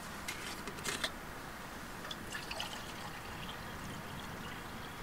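Water poured from a metal canteen into a metal cup on a small camping stove, trickling faintly. A few light clinks of metal come in the first second.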